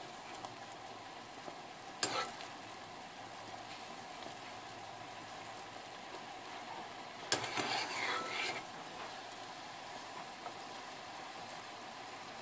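Orange peel boiling in thick sugar syrup, a steady bubbling hiss as it candies. A metal spoon clicks against the pot about two seconds in and again past seven seconds, the second followed by a moment of stirring.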